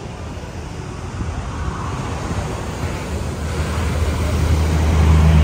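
Ocean surf breaking below a cliff, heard as a steady wash of noise with wind on the microphone. A low vehicle rumble from the roadside swells over the last couple of seconds and is the loudest thing near the end.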